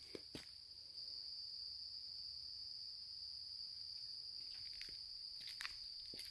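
A steady, high-pitched insect drone, a little louder from about a second in, with a few soft footsteps on the trail near the start and toward the end.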